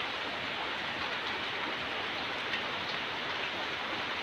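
Steady rain falling on garden foliage, an even hiss with a few faint drop taps.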